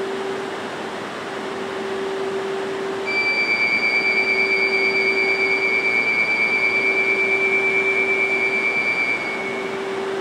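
E2 series Shinkansen train at a station platform, its equipment humming steadily, with a mid-pitched tone that breaks off briefly every couple of seconds. About three seconds in, a high electronic warning tone starts on the platform, warbling about four times a second, and rings for about six seconds before it stops. It is a platform departure signal.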